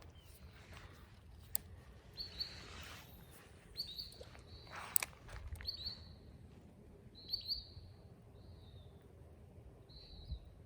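A songbird calling outdoors: about six short, high chirps, spaced one to two seconds apart. A couple of sharp clicks cut in, the loudest about five seconds in.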